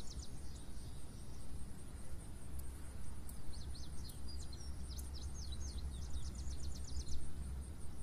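A bird's rapid trill, quick runs of short high notes about ten a second, over a low steady background rumble. One run fades out just after the start and another runs from a few seconds in until shortly before the end.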